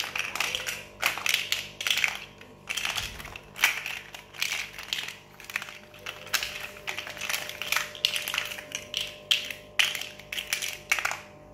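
Hollow plastic toy building bricks clicking and clattering as they are pressed together and knocked against a tiled floor, in an irregular run of sharp clicks.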